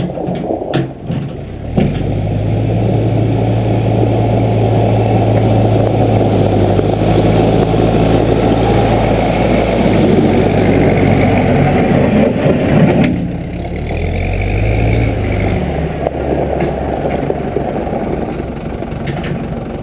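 Case 580B backhoe engine running hard at high revs, then easing off to a lower, steadier speed about two-thirds of the way through. A few sharp clicks come at the very start.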